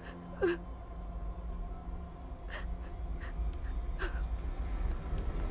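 A frightened woman gasping and sobbing, three short catching breaths, over a low rumble that slowly swells.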